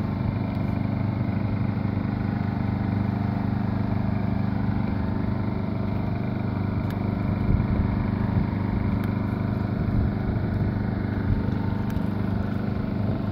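Steady mechanical hum with a rush of air from spray-painting equipment while clear coat is being sprayed, with a few faint ticks.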